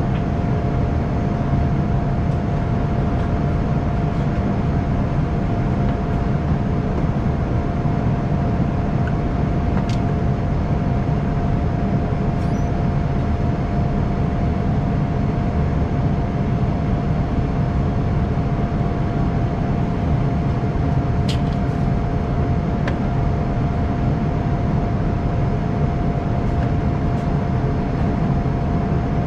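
Airliner cabin noise during the climb after takeoff: a steady low rumble of the jet engines and rushing air, with one steady hum tone over it.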